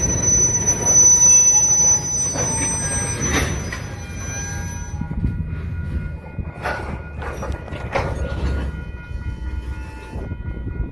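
Freight train of tank cars rolling slowly past: a steady low rumble of steel wheels on rail, with high-pitched wheel squeal. The squeal stops about five seconds in, leaving the rumble and a few brief sharp sounds from the cars.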